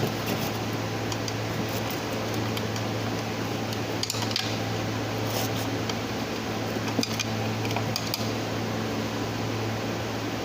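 Light metallic clinks of tools and parts being handled, a few scattered taps over a steady low hum.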